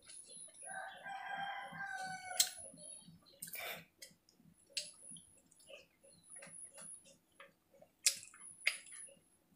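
A rooster crows once near the start, one call lasting nearly two seconds. Scattered soft clicks and smacks of eating by hand from a steel plate follow.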